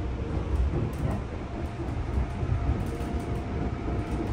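Running noise heard inside a commuter electric train car: a steady low rumble of wheels on rail, with a faint steady hum joining about one and a half seconds in.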